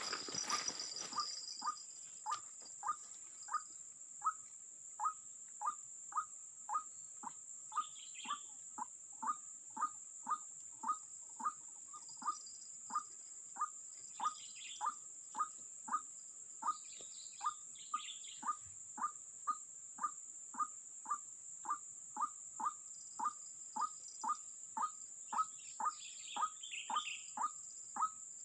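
White-breasted waterhen (ruak-ruak) giving a long, evenly paced series of short 'kwak' calls, about one and a half a second, over a steady high insect drone and faint chirps of other birds.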